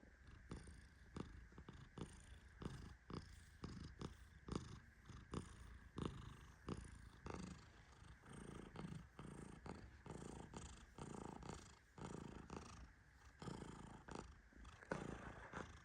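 A Persian cat purring faintly and steadily as it sleeps, with short soft clicks two or three times a second over the purr.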